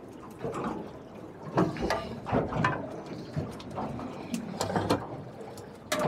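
Wet slapping, knocking and rustling of a hooked eel thrashing in the boat as it is handled and untangled from the fishing line, in irregular bursts.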